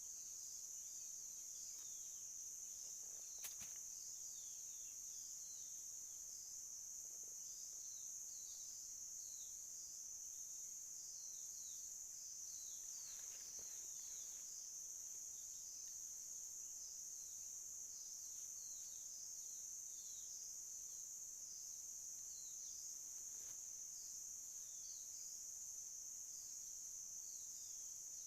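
A steady, high-pitched insect chorus of crickets or cicadas, with many short falling bird chirps over it and a single sharp click about three and a half seconds in.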